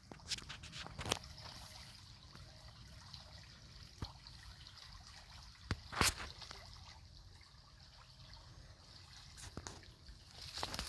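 Water trickling and dripping, with a few sharp splashes, the loudest about six seconds in.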